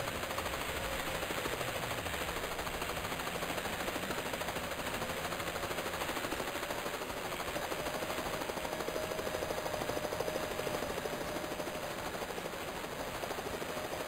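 Helicopter sound effect: the steady, rapid chop of rotor blades, with a faint steady whine underneath.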